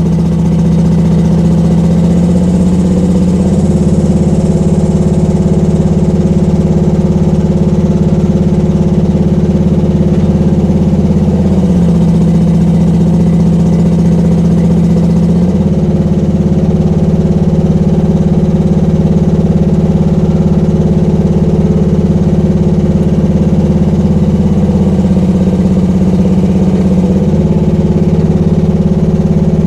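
Small gasoline engine of a Rippa R10 mini excavator running steadily with the hydraulic pump engaged. Its note shifts a few times as the hydraulic functions are worked one at a time.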